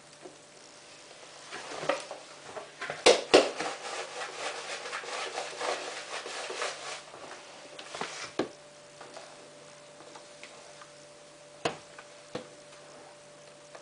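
Powder detergent being tipped into a washing machine's dispenser drawer: two sharp clicks, then a few seconds of dense pattering rustle as the powder pours, followed by a few scattered light knocks. A faint steady low hum lies under it.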